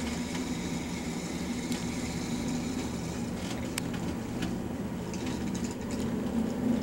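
Steady low mechanical hum, like a running appliance or fan, with a few faint ticks.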